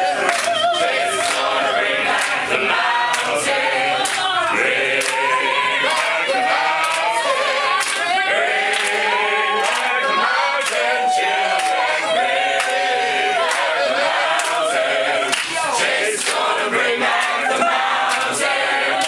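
A choir of men and women singing together a cappella, with hands clapping along.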